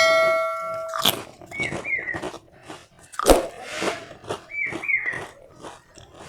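Close-up eating sounds: bites, crunching and chewing of fried snacks in short noisy strokes. A metallic ring fades out about a second in, and a pair of short high chirps comes twice.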